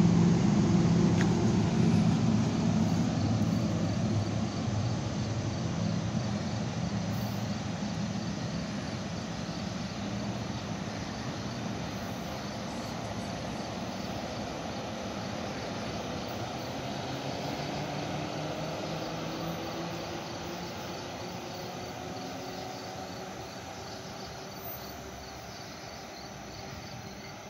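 NJ Transit ALP-45DP dual-mode locomotive pulling away on diesel power, its engine drone fading steadily as the train recedes, with a rising engine note about two-thirds of the way through. Crickets chirp steadily in the background.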